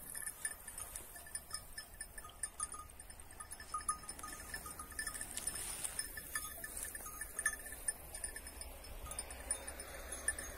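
Faint, irregular tinkling of bells worn by a grazing flock of sheep.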